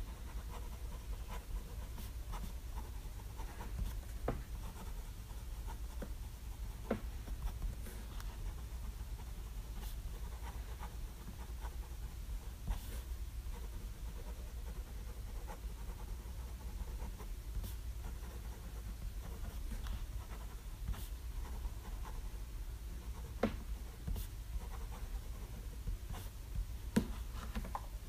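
Pilot Custom 823 fountain pen with a medium 14k gold nib writing on smooth 90 gsm Rhodia paper: faint, continuous nib scratching with scattered small ticks, over a steady low hum.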